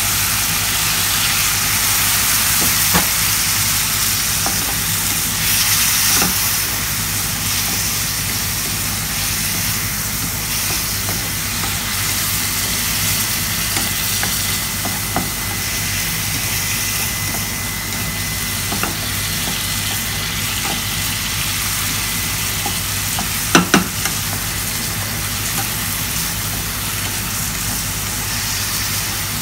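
Chicken pieces sizzling in a pan of hot oil and soy sauce as a spatula stirs them, with scattered clicks of the spatula on the pan and a sharper double knock about three-quarters through. A steady low hum runs underneath.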